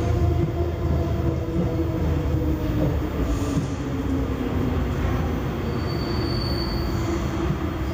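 Metro train running and pulling into a station, heard from inside the car: a steady rumble with a motor whine, and a high wheel-and-brake squeal for about a second, around six seconds in.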